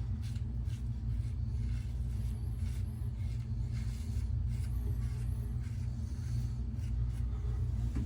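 Safety razor scraping through lathered stubble in short, repeated strokes, heard faintly over a steady low hum.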